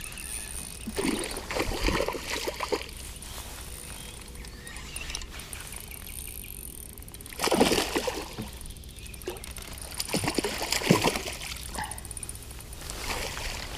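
Water splashing and sloshing in several irregular bursts as a hooked trout thrashes at the surface and is scooped up in a landing net. The loudest splash comes about halfway through.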